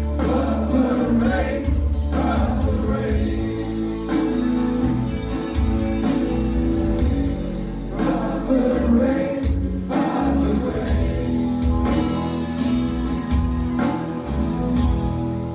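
Rock band playing live: a man singing lead over electric guitar and drums.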